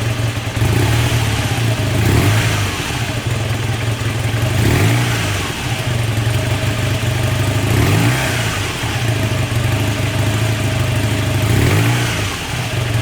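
Honda CB250N parallel-twin engine idling, with the throttle blipped about four times, each rev rising and dropping back to idle, a check of throttle response after carburettor adjustment.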